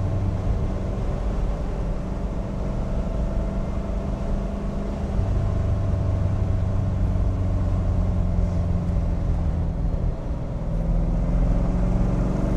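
1965 Corvette C2 Stingray's Blueprint stroker V8 with side-exit exhausts, running steadily while cruising on the road, heard from the driver's seat. The engine note gets a little louder about five seconds in, dips briefly and comes up louder again near the end.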